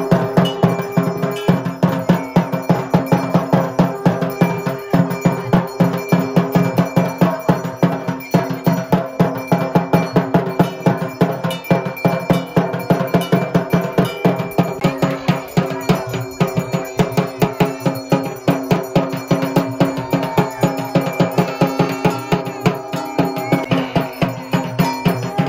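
Dhak drums beaten in a fast, steady rhythm, about five strokes a second, with metallic ringing over them.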